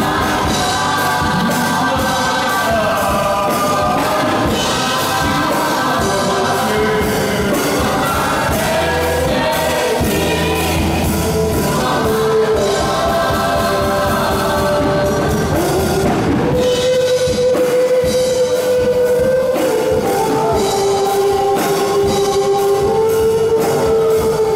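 Group of young singers performing a gospel song through microphones, with long held notes, over backing music with a steady beat.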